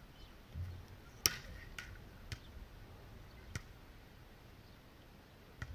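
A soft low thump, then a handful of sharp, irregularly spaced clicks, the first the loudest.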